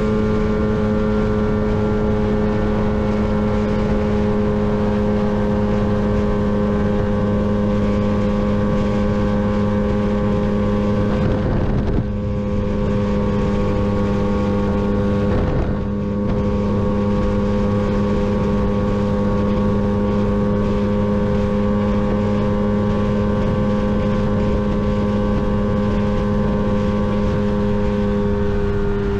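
Lambretta GP125 scooter's two-stroke single-cylinder engine held flat out at top speed, a steady high-pitched drone with wind buffeting the microphone. Near the end the engine note drops slightly.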